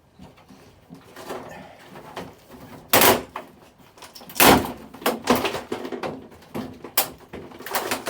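Plastic back cover of a 70-inch flat-screen TV being pried and pulled off its clip fastenings: scattered plastic clicks and creaks, with two loud snaps or knocks about three and four and a half seconds in.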